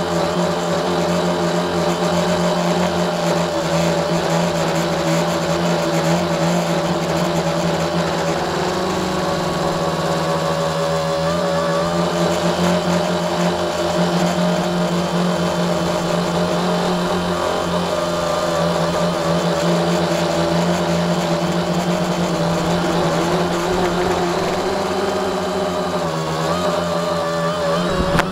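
A tricopter's electric motors and propellers in flight, heard from its onboard camera: a loud, steady buzzing drone whose pitch wavers slightly as the throttle changes. Near the end the craft comes down into the grass.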